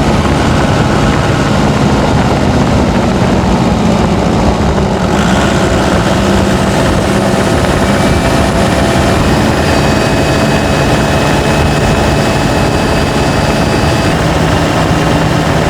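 Four-cylinder turbo-diesel engine of a Nissan Patrol running steadily under load on a steep climb. A thin, high steady tone sits over the engine sound through the middle of the stretch.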